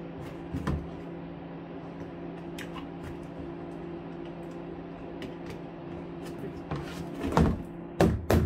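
Plastic storage tote being handled: faint ticks and scrapes of plastic shavings being cleared from freshly drilled holes, then several loud plastic knocks and thumps near the end as the tote is lifted and turned over. A steady low hum runs underneath.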